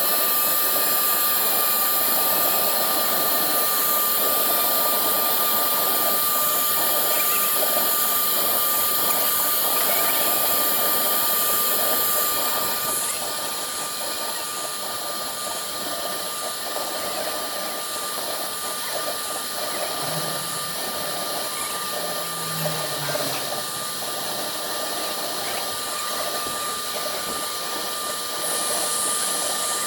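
CNC router spindle engraving MDF: a steady high-pitched whine over a dense hiss of cutting noise. It drops in level about twelve seconds in and rises again near the end.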